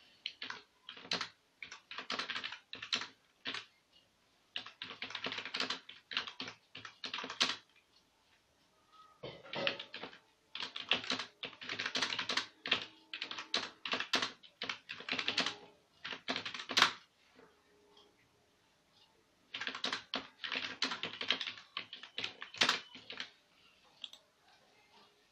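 Computer keyboard typing: bursts of quick key clicks with pauses of a second or two between them.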